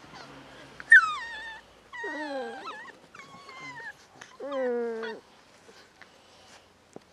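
Seven-week-old beagle puppies whining and yelping: about four drawn-out calls, the first a sharp yelp about a second in and the loudest, most of them sliding down in pitch.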